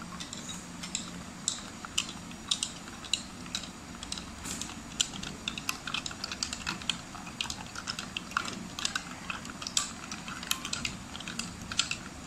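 A metal spoon stirring a sattu drink with ice cubes in a glass bowl: quick, irregular clinks and taps of spoon and ice against the glass.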